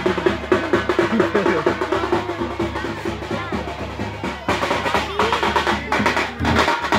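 Fast drumming, many quick strokes in a steady rhythm, over a crowd talking.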